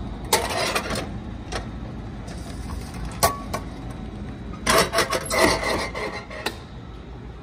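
Knocks, clatters and scrapes from the metal delivery hatch of a retro noodle vending machine as its hinged flap is worked and a bowl of udon is taken out. There is a short clatter about half a second in, single knocks twice after it, and a longer run of knocks and scrapes from about five to six and a half seconds in, over a low steady hum.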